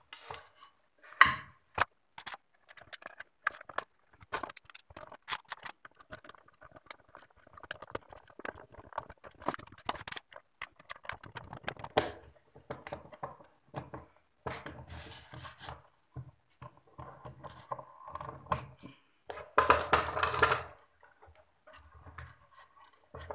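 Hands and a screwdriver fitting a small cooling fan into a plywood box: a run of clicks, knocks and scrapes, with a sharp knock about a second in and a louder stretch of scraping near the end.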